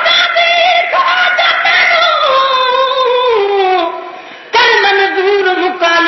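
A naat, a Sindhi devotional poem in praise of the Prophet, sung by a single high voice. It holds one long wavering line that slides slowly downward and breaks off about four seconds in, and a new held line begins about half a second later.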